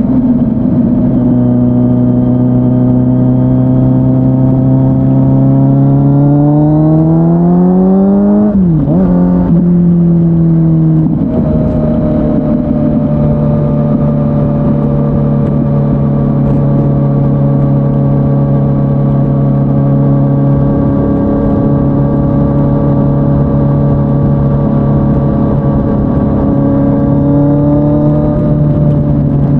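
Kawasaki Z900's inline-four engine running through an SC-Project S1 exhaust at a steady cruise. About six seconds in it revs up in a rising pitch, drops sharply, then settles back to a steady pitch, lifting slightly near the end.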